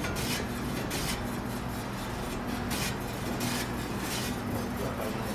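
Electric deli meat slicer running with a steady hum as it slices capocollo, with a brief swish repeating every second or so as the blade cuts each slice.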